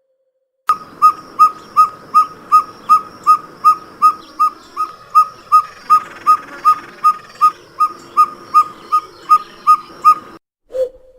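An owl calling in a long, even series of short whistled toots, about two to three a second on one pitch. The calls start after a brief silence and stop near the end, where a single lower hoot follows.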